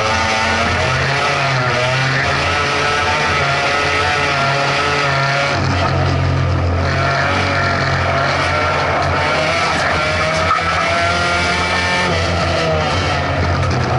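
Rally car engine running hard under load, heard from inside the stripped-out cabin, its revs rising and falling as the car is driven round the track.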